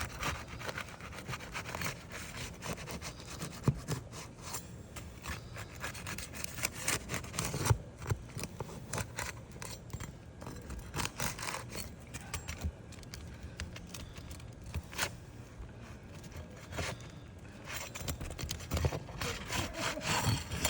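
Asphalt roof shingles being pried and scraped apart with a tool, breaking the sealant bond between the courses: a long run of irregular scrapes and crackles, with now and then a sharper knock.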